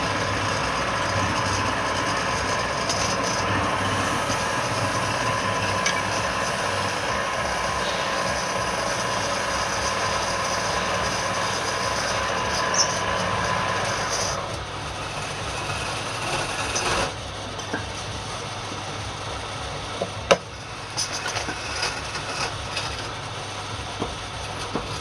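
Wood lathe running with a steady mechanical hum. It drops to a lower, quieter sound a little over halfway through, and there is a single sharp click near the end.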